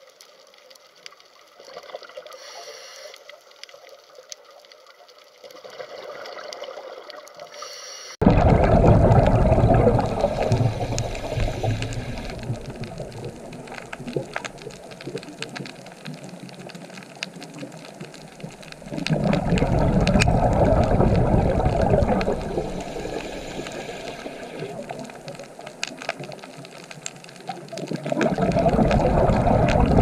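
Underwater water noise with bubbling and rushing. It jumps in abruptly about eight seconds in and then swells in long, loud surges about every ten seconds, with a fainter stretch before it.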